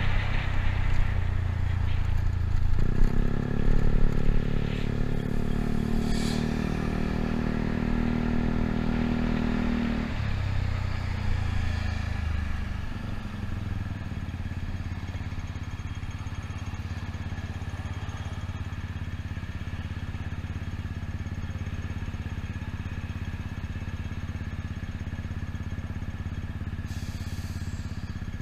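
Yamaha Cygnus 125 scooter's single-cylinder engine running steadily as it rides, louder for the first dozen seconds. It then drops to a quieter, steady idle while the scooter waits at a red light.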